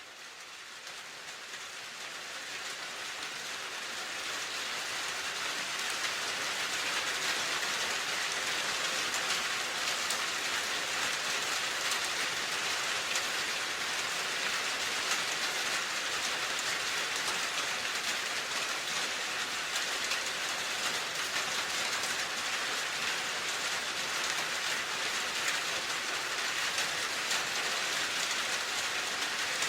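Steady rainfall, an even hiss of many drops, fading in over the first several seconds and then holding steady.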